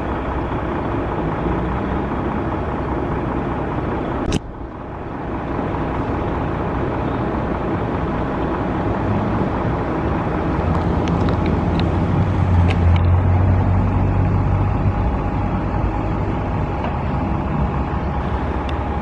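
Road traffic passing, a steady roar with a stronger low engine rumble swelling past about two-thirds of the way through. A sharp click about four seconds in.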